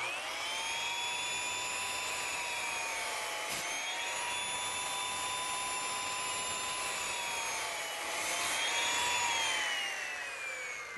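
Circular saw running while making repeated shallow kerf cuts across a 2x4 to clear the waste from a notch. It spins up at the start with a steady whine that dips slightly in pitch a few times as it cuts, then winds down near the end.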